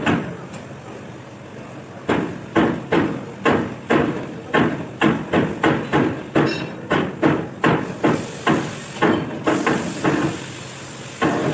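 Repeated hammer blows on metal, about two to three a second, while an engine block is being assembled; the striking begins about two seconds in and breaks off shortly before the end.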